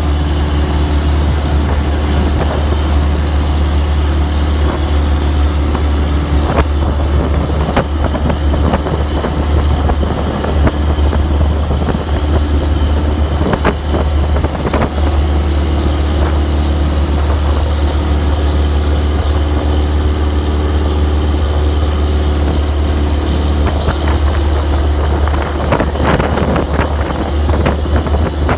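Fishing boat engine running steadily, a loud low drone with water and wind noise over it, and a few short sharp noises around the middle and near the end.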